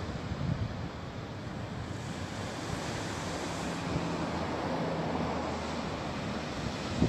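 Calm sea: small waves washing onto the shore and receding, a continuous surging hiss that swells and eases.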